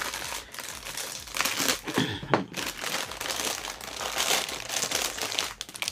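Crinkling of a thin plastic bag holding model-kit parts runners as it is handled, an irregular crackle that goes on throughout.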